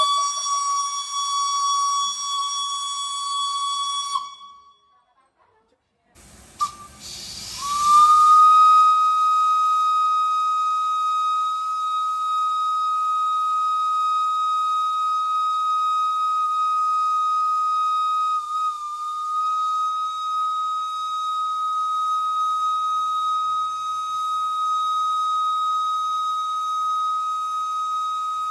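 Steam locomotive whistle blowing a single steady note. One blast ends about four seconds in. After a short break, a long blast begins with a hiss of steam, rises slightly in pitch, then holds steady.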